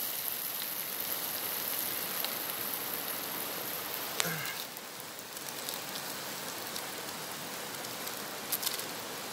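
Chicken and spices sizzling in oil in a frying pan over a wood fire: a steady hiss, with a couple of faint clicks.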